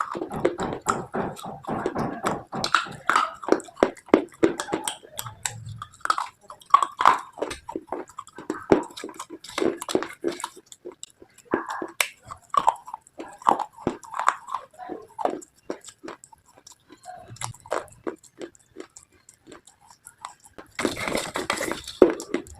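Close-miked biting and chewing of brittle slate items: an irregular run of sharp crunches and crackles, with a denser flurry of crunching near the end.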